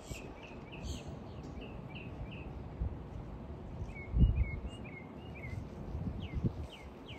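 Birds chirping in a series of short, high, falling chirps, over a steady low outdoor rumble. A dull thump comes about four seconds in.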